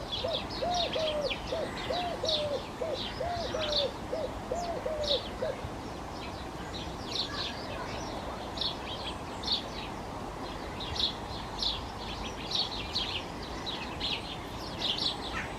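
House sparrows chirping repeatedly in short high chips. For the first five seconds or so a run of about a dozen quick, low, arched notes repeats about twice a second underneath.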